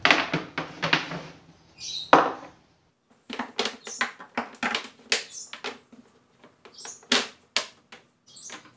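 Speaker cables being uncoiled and laid down on the plywood top of a subwoofer cabinet: a run of irregular knocks, slaps and rustles of cable and connectors on wood.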